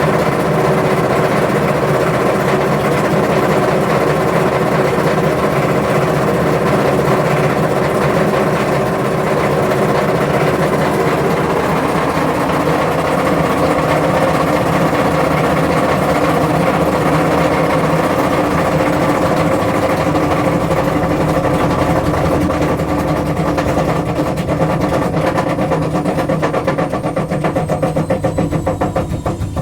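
Washing machine on its spin cycle with failed drum bearings, making a loud, continuous rattle like a machine gun. Near the end the spin slows: the rattle breaks into separate, evenly spaced clatters and a high motor whine falls in pitch.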